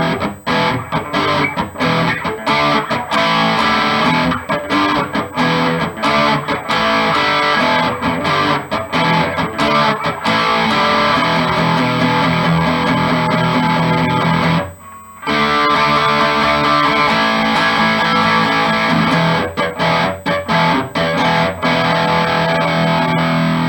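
Electric guitar with a Seymour Duncan Little 59 mini humbucker in the bridge position, played through an amplifier with the bass tone rolled back to 3. It is played in phrases with many short breaks, and stops briefly about 15 seconds in.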